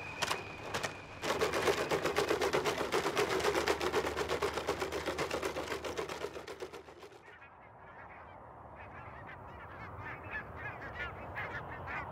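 A loud, dense, rapid clatter of clicks for several seconds, fading out about seven seconds in. Then comes a quieter stretch of scattered short honking bird calls.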